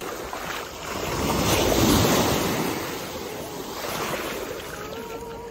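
Small waves breaking and washing up a sandy shore, the wash swelling about two seconds in and again around four seconds.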